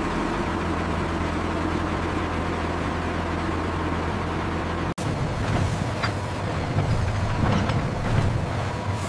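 Aircraft tow tractor running steadily with a low, even hum as it moves. A brief break comes about five seconds in, after which a rougher, louder rumble of the rolling vehicle follows, with a few faint clicks.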